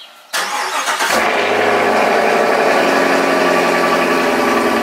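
Chevrolet Camaro SS's 6.2-litre V8 cold start. The starter cranks briefly and the engine catches about a second in, then settles into a loud, steady idle.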